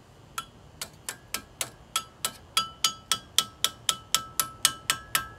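A small metal tool tapping repeatedly on the front disc brake caliper and pad, each strike a sharp metallic tick that rings briefly at the same pitch. The taps start about half a second in and quicken to about five a second.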